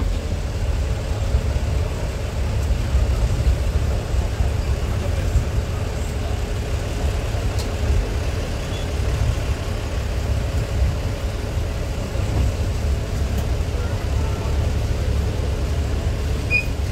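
DR2303 diesel railcar's engine running with a steady low rumble, heard from inside the carriage as it rolls slowly along the track.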